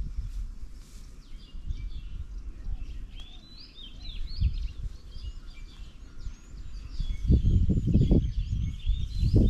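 Several small birds chirping and calling over one another, short quick notes. Under them runs a low rumbling noise that grows much louder about seven seconds in.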